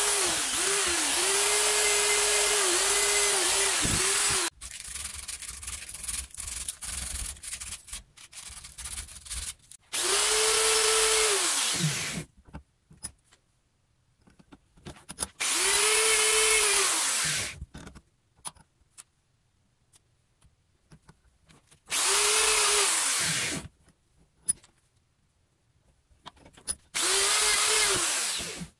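Electric drill spinning a wire wheel brush against a small steel part clamped in a bench vise, wire-brushing off rust. The motor's pitch dips under load. After a stretch of quieter clicks and handling, the drill runs in four short bursts, each winding down as the trigger is let go.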